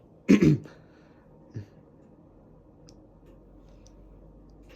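Two sharp, loud knocks about a third of a second in and a softer thump a second later, then the faint steady low hum of a Whirlpool Duet front-load washer's drum spinning, with a few light clicks.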